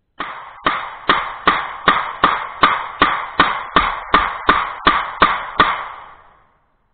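A 9mm pistol fired rapidly, about fifteen shots at roughly two and a half a second, emptying a magazine. Each shot is followed by a short echo, and the last one dies away about six seconds in.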